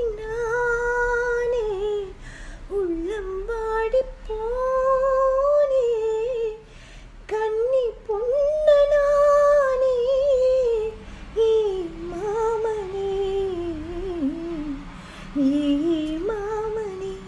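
A woman singing a slow melody in long held notes, in phrases of a few seconds with short breaks between them.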